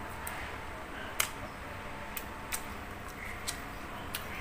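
Eating sounds at a table: a handful of sharp small clicks and crunches, irregularly spaced, from handling and chewing crispy fried food, over a steady low hum.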